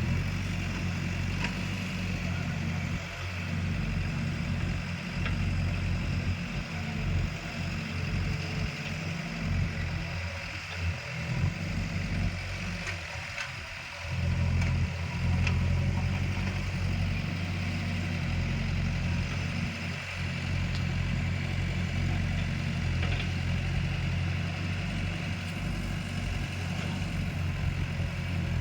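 Backhoe loader's diesel engine running steadily, dropping off briefly about ten seconds in and coming back louder a few seconds later.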